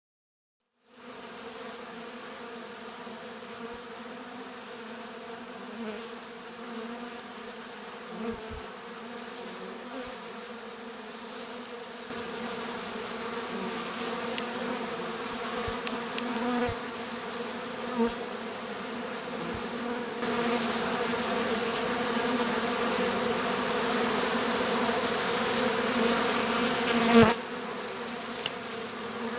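Honey bee winter cluster humming steadily inside the hive, a low pitched drone. It starts about a second in, grows louder partway through and again later, with a few brief clicks.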